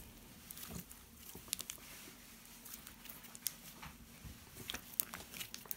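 Homemade glue-and-contact-solution slime being handled, giving faint, scattered sticky clicks and pops.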